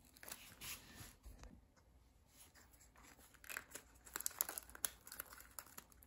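Faint crinkling and rustling with small clicks as fingers force a pancake Geiger-Müller tube into the meter's stiff spring-loaded holder, busiest a little past halfway.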